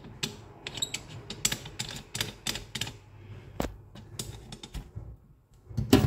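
Irregular small metallic clicks and taps as the chrome tip of a kitchen faucet, where the mesh filter sits, is handled and worked loose over a stainless-steel sink. A louder thump comes near the end.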